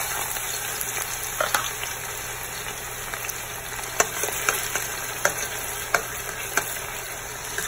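Sliced onions sizzling in hot oil in a stainless steel pot, stirred with a spatula that knocks sharply against the pot several times.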